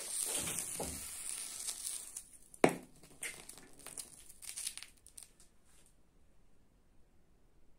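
Sodium metal reacting violently with hot water: a hissing fizz for about two and a half seconds, a sharp pop a little under three seconds in, then scattered crackles and sputters as the burning sodium skitters on the water, dying away about six seconds in.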